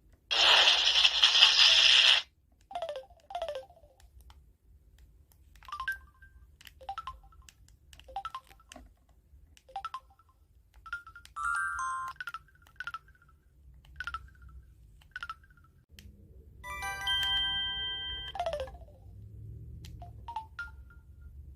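Samsung Anycall SCH-S530 mobile phone playing a string of short electronic tone sounds: it opens with a loud burst of hiss about two seconds long, goes on with brief beeps and falling chirps, and ends with a short chord of several steady tones.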